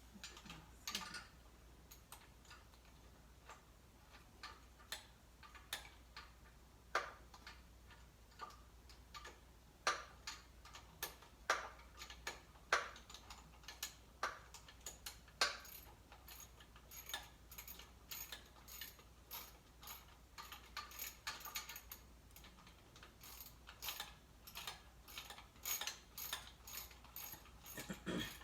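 Irregular light clicks and taps of hand tools and metal parts being handled while working on a car engine, with a few sharper clicks around the middle and quicker, denser clicking in the second half.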